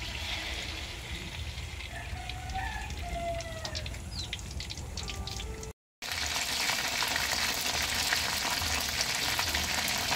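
Chicken pieces deep-frying in hot oil in a wok: a steady sizzle with scattered pops. After a break about six seconds in, the sizzle of the battered pieces is louder and denser.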